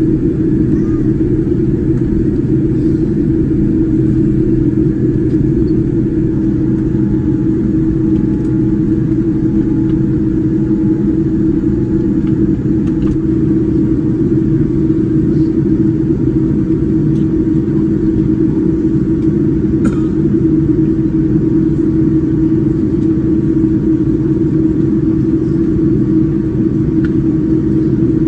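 Steady low rumble of airliner cabin noise aboard a Boeing 787-9, even and unchanging throughout.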